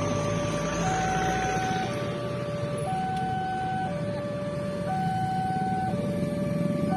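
Railway level-crossing warning alarm sounding: an electronic two-tone signal alternating between a lower and a higher tone about once a second, warning that a train is approaching and the barrier is closing. A steady low rumble lies beneath it.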